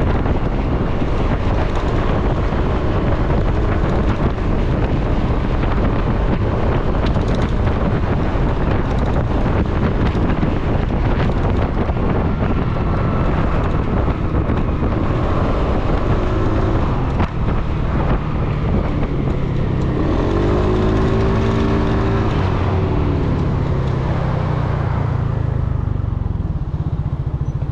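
Peugeot Speedfight 4 125 scooter's single-cylinder four-stroke engine running at cruising speed under heavy wind rush on the microphone. About twenty seconds in, a pitched note swells and falls away.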